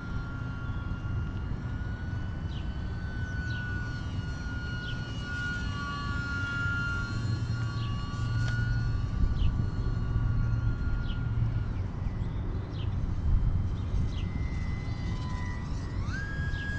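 Electric motor and propeller of an E-flite UMX Pitts micro RC biplane whining in flight, its pitch wavering with throttle and stepping up sharply near the end. A steady low rumble lies underneath.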